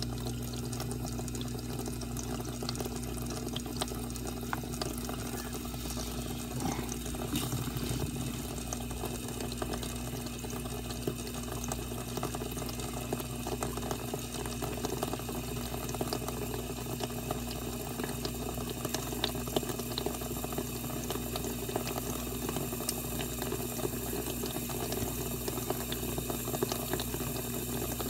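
Water rushing steadily into a dishwasher's plastic tub as it fills through a newly replaced water inlet valve, with a steady low hum underneath; the sign that the new valve is opening and admitting water.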